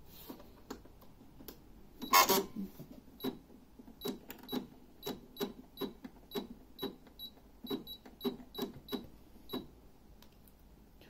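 Computerized sewing machine beeping at each press of its selection buttons: a run of short click-beeps, about two to three a second, as the stitch pattern is stepped through. A single louder clatter comes about two seconds in.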